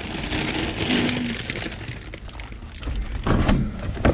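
Plastic sheeting and snack bags rustling and crinkling as they are rummaged through and lifted, with a few sharp knocks and thumps about three seconds in.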